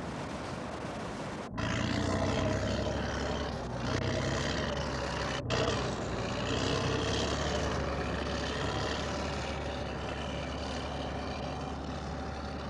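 Crawler bulldozer's diesel engine running as it pushes rock fill, over rushing water. The sound breaks off and resumes abruptly twice, about one and a half and five and a half seconds in.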